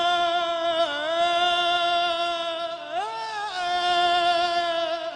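A man singing one long held note of a Turkish folk song. The pitch dips briefly about a second in and swells up and back down near three seconds.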